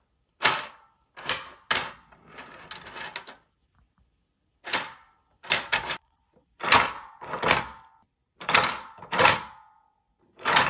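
Articulated 3D-printed plastic spider being pressed and handled: sharp plastic clacks as its jointed segments knock together, about a dozen of them, several in quick pairs, with a short rattle about two seconds in.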